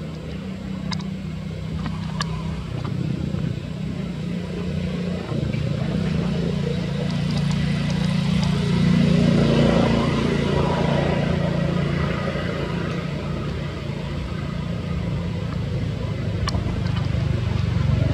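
A motor vehicle engine running nearby, a steady low hum that swells louder about halfway through, with a few faint sharp clicks.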